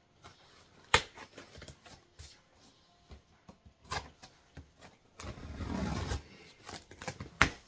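A box being handled and opened by hand: a sharp tap about a second in, soft handling ticks, about a second of rustling from the box or its packing a little past the middle, and a second sharp tap near the end.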